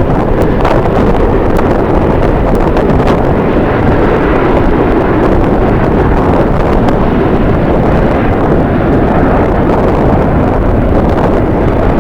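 Strong wind buffeting the microphone: a loud, steady low rumble with a few faint clicks.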